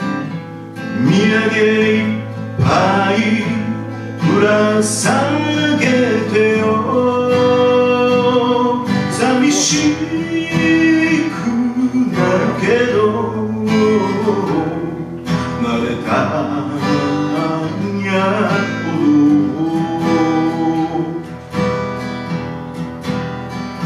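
A man singing while strumming an acoustic guitar: a live solo vocal and guitar performance.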